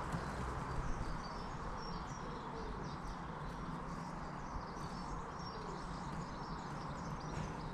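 Outdoor garden ambience: a steady background hiss and low rumble, with many short, high chirps of small birds singing in the distance.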